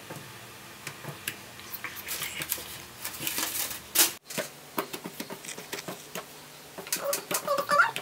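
Soft irregular taps and light slaps of challah dough strands being lifted, crossed and laid down on a countertop during braiding. The sound cuts out for an instant about four seconds in, and a voice starts near the end.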